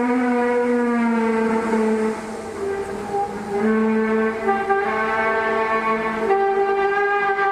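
A long, loud, trumpet-like groaning drone with many overtones, its pitch sliding slowly down and stepping between notes, dropping away briefly about two seconds in before returning. This is the kind of mysterious sound from the sky that is claimed to come from the heavens, of unknown origin.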